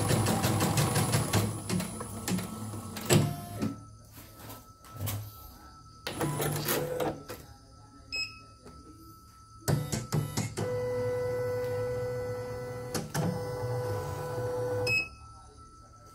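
CNY portable computerized embroidery machine stitching at speed, its needle running in a fast, even rhythm that runs smoothly, then stopping with a knock about three seconds in. Later the control panel beeps twice as buttons are pressed, a steady motor hum runs for about four seconds, and it beeps again near the end.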